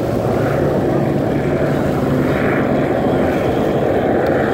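Two racing speedboats' engines running flat out, a steady engine drone.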